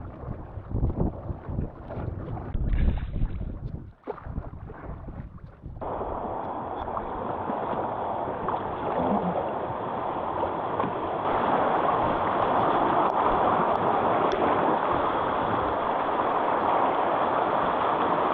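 Wind buffeting the microphone with low thumps, then after a cut a steady rush of moving water, which gets louder about halfway through.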